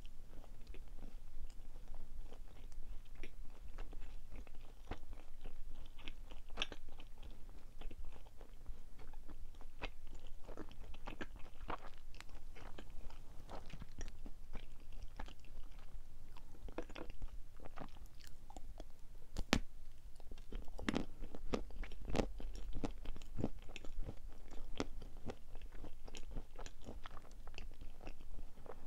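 Close-up chewing and mouth sounds of a person eating soft chocolate-coated marshmallow cream sweets, with irregular small wet clicks and smacks.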